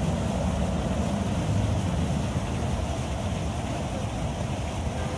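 Wind buffeting the microphone: a steady, unbroken rumbling noise.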